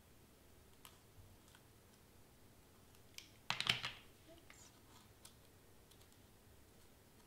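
Hot glue gun set down into its plastic stand with a short clatter about halfway through, among faint taps and rustles of paper butterflies being pressed onto a sheet of paper.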